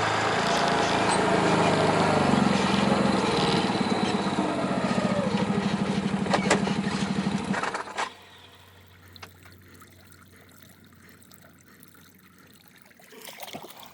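Off-road vehicle engine running with a steady pulsing beat, its pitch rising and falling a little. It cuts off abruptly about eight seconds in, leaving only faint background sound with a few light ticks.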